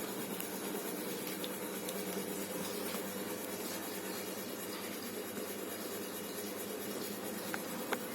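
Steady background hiss and low hum, with two faint clicks near the end.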